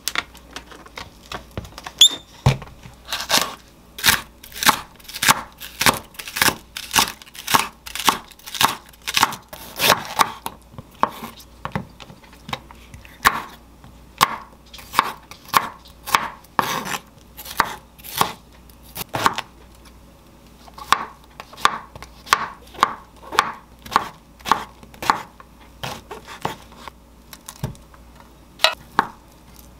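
A kitchen knife chopping vegetables on a wooden cutting board, in steady strokes about two a second, with a brief pause partway through and a few last cuts near the end. A single knock about two seconds in.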